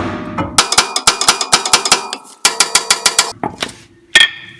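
Ratchet wrench clicking in two quick runs of about six clicks a second, after the ringing tail of a hammer blow on metal; a single sharp metallic clank rings out near the end.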